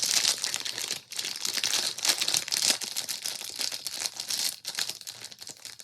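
Crinkling and rustling handling noise: a dense, continuous run of small crackles, easing a little in the last second or so.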